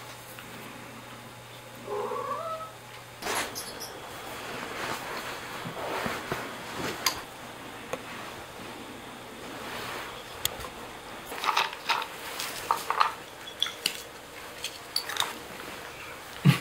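A domestic cat meows once, about two seconds in: a short call rising in pitch. Scattered rustling follows, then a run of light clicks and taps, and a sharp knock at the very end.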